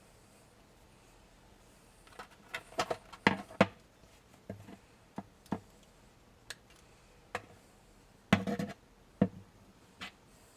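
Irregular sharp clicks and knocks of metal parts being handled, starting about two seconds in, as a PPSh-41 submachine gun is taken apart.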